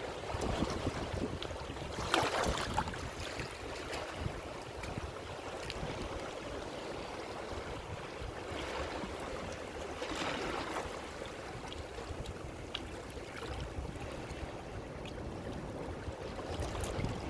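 Ocean waves washing on a shore: a steady rush of surf with two bigger breaking surges, about two seconds in and again about ten seconds in.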